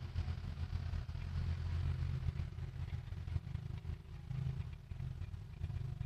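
A steady low rumble and hum with no sharp sounds in it.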